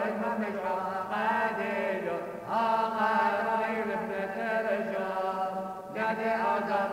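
Syriac Orthodox liturgical chant: sung voices holding long melodic phrases over a steady pitch, with new phrases starting about two and a half seconds in and again near the end.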